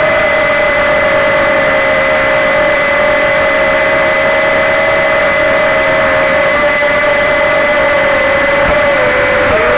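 Walkera QR Ladybird V2 micro quadcopter's motors and propellers running in flight: a loud, steady whine picked up close by the 808 keychain camera riding on the drone. The pitch wavers near the end as the motors change speed.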